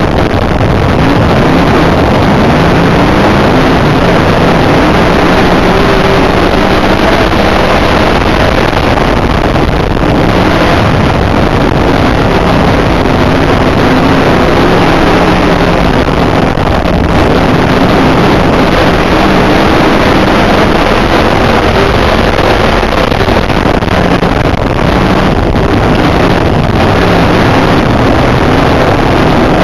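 IMCA dirt modified's V8 race engine, heard from inside the car, running hard and very loud without a break. Its pitch rises and falls as the throttle comes on and off through the turns.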